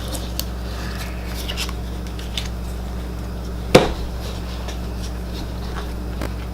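Small clicks and rustles of playing cards being handled at a table, with one sharp knock on the table a little past the middle, over a steady low hum.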